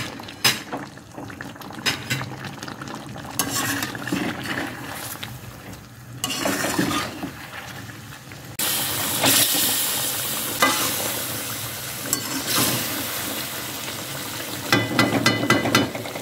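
Chicken and tomatoes frying over a high flame in an iron karahi, with a spatula scraping, tapping and stirring against the pan. The sizzling grows sharply louder about halfway through, and clicks of the spatula come again near the end.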